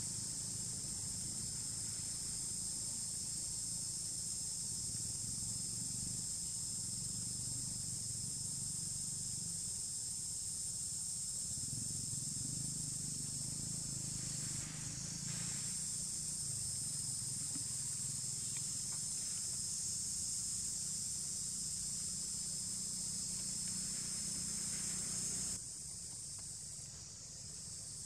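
A steady, high-pitched drone from an outdoor insect chorus, with a low hum beneath it. The drone changes abruptly and thins near the end.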